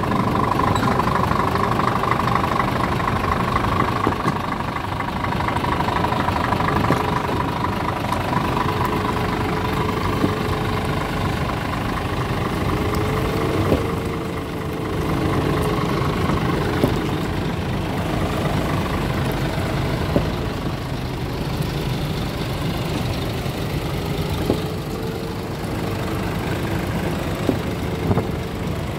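Scania R450 tractor unit's 13-litre straight-six diesel idling steadily, with a few light clicks on top.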